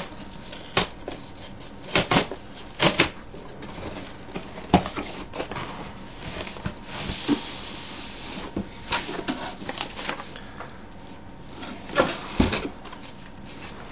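Cardboard shipping box being opened by hand: scattered sharp rustles, crackles and knocks of cardboard, with a longer sliding scrape about six to eight seconds in as the contents are pulled out. A few louder knocks near the end come as the plastic-wrapped product box is handled.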